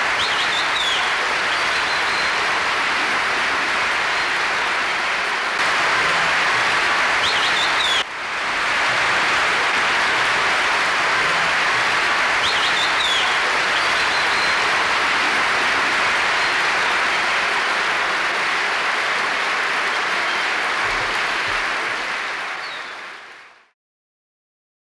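Concert-hall audience applauding steadily after an orchestral performance, with a few short high whistles. There is a brief break about eight seconds in, and the applause fades out shortly before the end.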